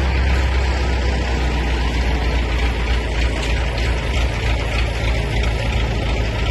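Heavy diesel engine of a truck idling steadily, a constant low rumble.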